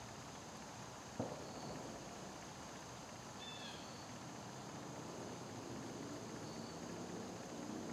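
Faint woodland ambience: a steady high insect drone with a few short bird chirps, and a single sharp click about a second in. Faint low humming tones build near the end.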